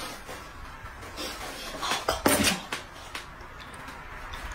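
Tabletop handling noises: a small plastic packet being handled and torn, then chopsticks stirring noodles in a metal bowl, with a few short crinkles and clicks around the middle.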